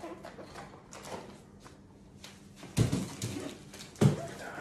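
Cardboard packaging handled with faint rustling, then two dull thumps about three and four seconds in as a large cardboard box is lifted and carried.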